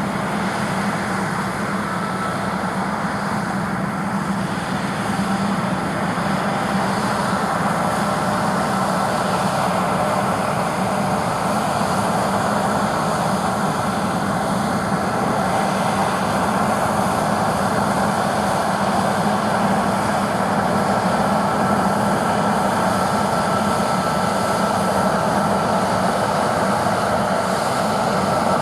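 John Deere T670i combine harvester running steadily while harvesting barley: a constant machine drone with a faint high whine over it.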